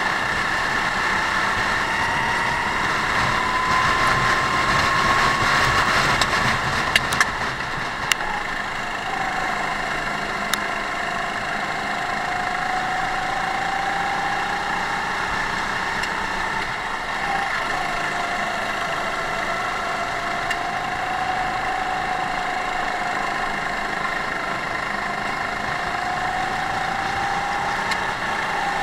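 Rental go-kart engine running at racing speed, heard up close from onboard: its pitch climbs steadily over the first few seconds, drops about eight seconds in, then rises and falls gently as the kart accelerates and lifts for corners. A few sharp clicks about seven to eight seconds in.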